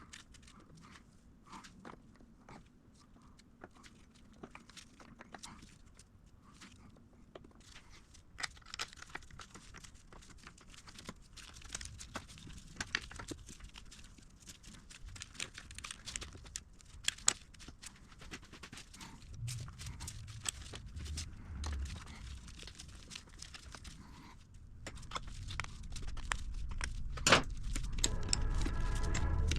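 Scattered clicks, taps and knocks of hand tools and small metal engine parts being handled, with some rustling. A low rumble builds over the last few seconds.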